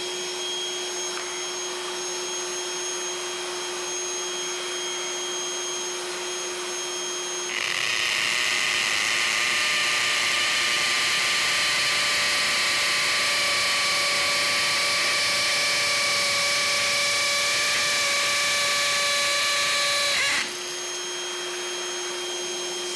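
Ryobi portable vacuum cleaner running steadily with a whine as it sucks through a 3D-printed drill dust-collector cup. About seven and a half seconds in, a Festool cordless drill starts boring into a brick through the cup, much louder than the vacuum. The drill stops abruptly about twenty seconds in, and the vacuum runs on alone.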